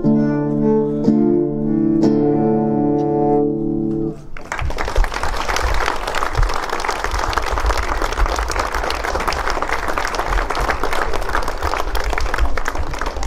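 A piece of live music ends on long held notes about four seconds in, and is followed by steady applause from the audience.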